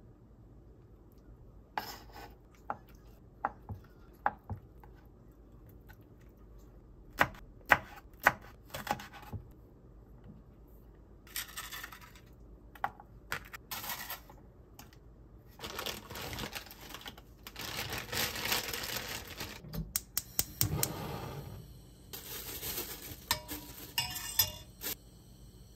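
Kitchen knife cutting Korean zucchini, tofu and green chili on a wooden cutting board: about a dozen sharp taps over the first ten seconds. Then come longer stretches of rustling and scraping. Near the end a metal spoon clinks and rings against a stainless steel pot.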